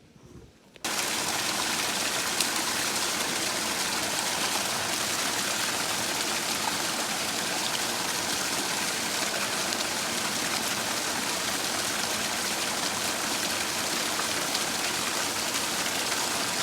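River water flowing over rocks, a steady rushing that starts abruptly about a second in and holds evenly.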